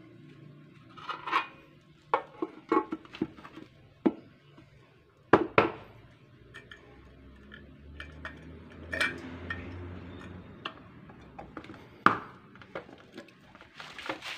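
Metal paint can clinking and knocking as its lid and wire handle are handled and the lid is put back on. There are scattered sharp clicks, with louder knocks about five seconds in and again near the end.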